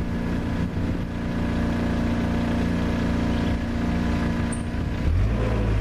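Forklift engine running steadily, its note dropping and getting heavier about five seconds in.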